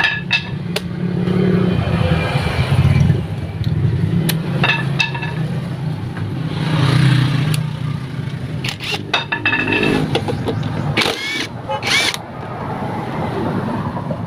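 Cordless impact wrench hammering motorcycle bolts loose in several bursts, with sharp clicks of socket and metal in between.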